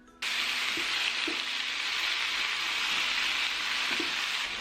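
Spinach and chopped tomatoes sizzling as they fry in oil in a pan, a steady hiss that comes in suddenly just after the start, with a few faint knocks of the stirring spoon.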